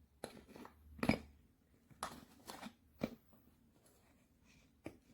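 Small tools and their case being handled: a scattering of short clicks and rustles, about six in all, the loudest about a second in.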